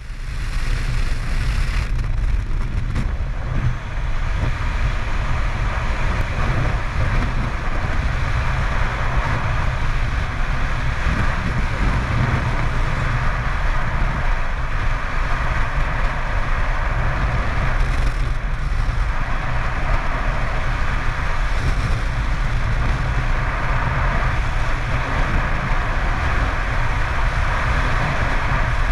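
Freefall wind buffeting a skydiver's camera microphone: a steady, loud rush of air with no break, starting abruptly at the very start.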